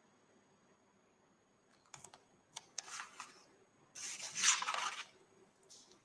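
A few sharp clicks followed by short bursts of scraping, rustling noise, loudest about four to five seconds in, like something being handled close to a microphone.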